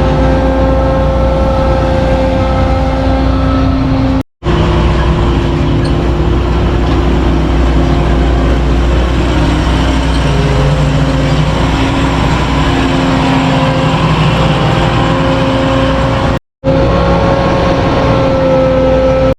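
Farm machinery engine running steadily at working speed, heard in several clips joined by hard cuts, with brief dropouts about four seconds in and again near the end.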